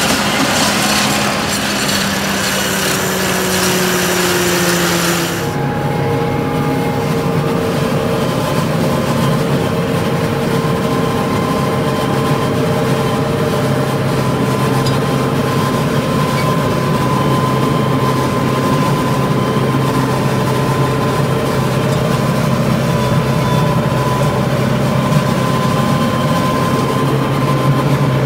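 Tractor-mounted Çelmak maize silage harvester, driven by a Case tractor, chopping standing corn: a loud, steady rush of cutting and blowing. About five seconds in, this changes to a steadier drone of the tractor engine and a steady whine from the harvester, heard inside the tractor cab.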